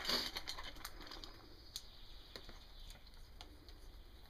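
Faint, sparse clicks and light scuffs over a low hiss, with a brief rustle at the very start.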